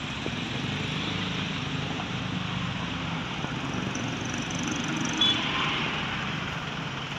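Road traffic passing, a steady rush of engines and tyres with a low engine rumble. About five seconds in there is one short, sharp, high sound.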